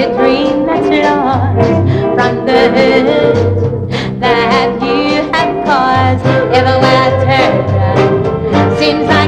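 Live band with brass playing an up-tempo swing-style number, with a steady bass pulse.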